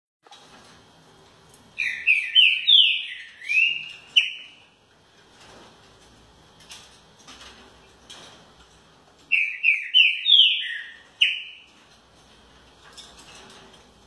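Caged green-winged saltator (trinca-ferro) singing two loud phrases of several quick, sliding whistled notes, each phrase about two seconds long. The first comes about two seconds in and the second about nine seconds in.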